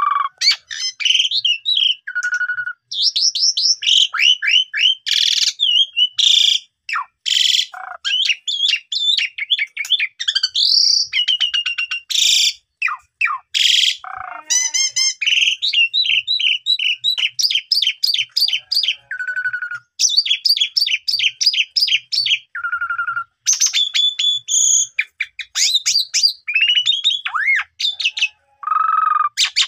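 Asian pied starling (jalak suren) in full non-stop song, pouring out its repertoire. It is a fast, varied run of chirps, rising and falling slurred whistles, rapid trills and harsh rasping notes, with a low clear whistle that recurs several times.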